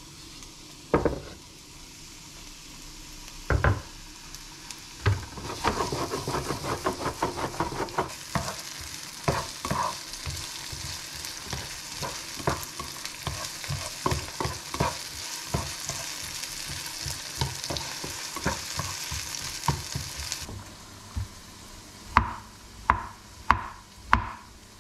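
A few knocks of a wooden cutting board as diced carrots are pushed into a frying pan, then the vegetables sizzling in hot oil while a spatula scrapes and taps against the pan. Near the end, four chops of a chef's knife through a mushroom onto the wooden board.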